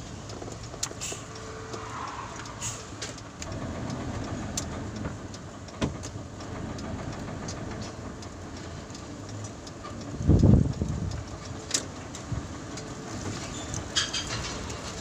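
Truck engine running while driving, heard from inside the cab, with scattered small rattles and clicks. About ten seconds in comes a loud low rumble lasting about a second.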